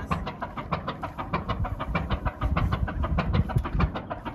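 Boat engine running with a fast, even knocking beat.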